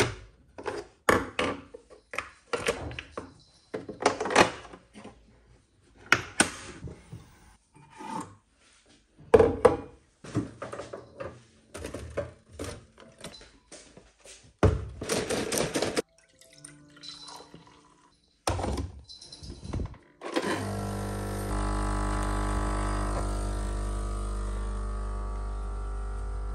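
Clicks and knocks of hands working a capsule coffee machine and setting down a mug and a carton. From about 20 seconds in, a steady hum with several held tones takes over.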